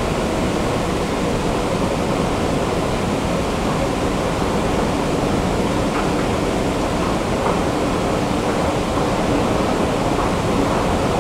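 Steady rushing noise with a faint machinery hum in an underground metro station.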